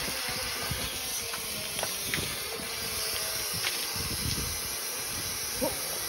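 Steady hiss of water spraying and running out of a dryer vent whose duct is blocked by a bird's nest, with a few faint clicks.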